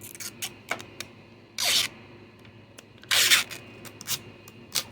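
Protective plastic film being peeled off a plastic LED lamp: two short ripping peels, about a second and a half apart, with small crinkles and clicks of the film and lamp being handled in between.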